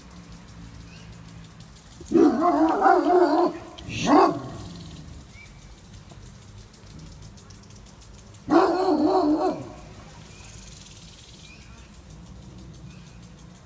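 Cocker spaniel barking in two loud bouts, about two seconds in and again about eight and a half seconds in, with a single sharp bark between them at about four seconds.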